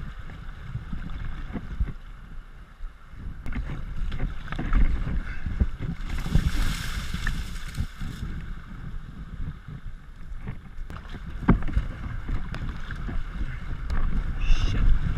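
Kayak running a shallow riffle: river water rushing and splashing against the hull and paddle, with wind rumbling on the microphone. From about six to eight seconds in comes a hissing burst of rustling as the boat pushes through willow branches and reeds.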